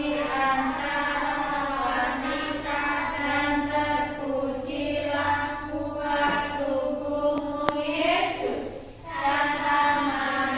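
A group of children singing together in unison, holding long sustained notes.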